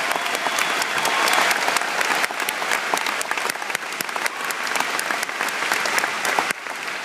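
Large crowd applauding, dense clapping from many hands that eases off a little near the end.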